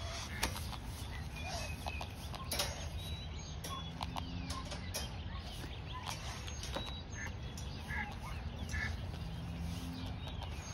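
An owl caught in welded-wire fencing flapping and struggling, with scattered rattles and knocks of the wire as gloved hands work it loose.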